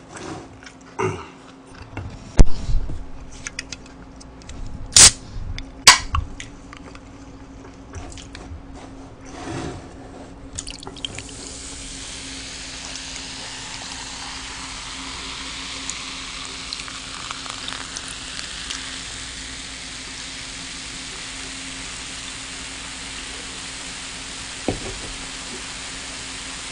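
Cola poured from a can into a plastic cup, the carbonation then fizzing in the cup as a steady hiss. A few sharp clicks and knocks of the can and cup come before the fizz starts.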